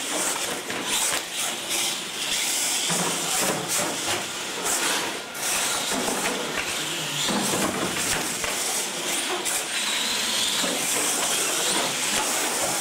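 Radio-controlled monster trucks racing across a concrete floor: a steady high hiss and whine from their motors and tyres, with a few short knocks as they hit and land off the ramps.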